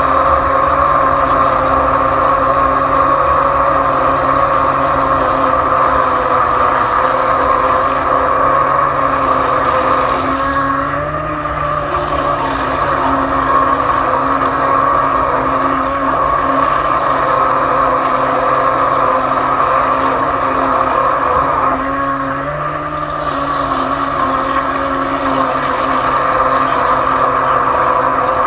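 A steady motor drone holding one pitch, dipping briefly twice.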